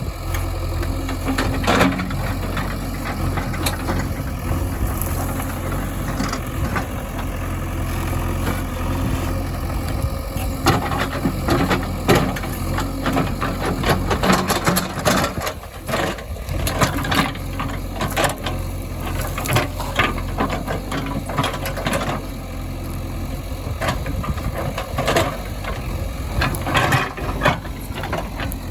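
Diesel engines of a backhoe loader and tractors running at a steady low rumble, with scattered knocks and clanks over it.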